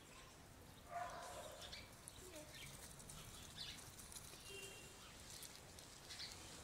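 Near silence: faint outdoor ambience, with a brief faint call about a second in and a few soft ticks and rustles.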